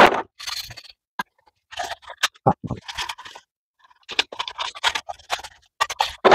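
Scrubby pad scrubbing soapy plastic window switch trays, in short, irregular scraping strokes with brief pauses.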